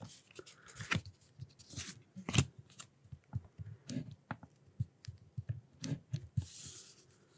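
Stylus tapping and scratching on a tablet screen while handwriting and underlining: faint, irregular clicks and taps, with a short scratchy stroke near the end.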